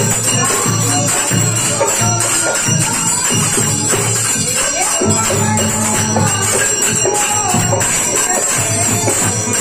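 Live Indian devotional music from a seated group: a steady jingle of hand percussion over a drum beat, with a melody played on a keyed instrument.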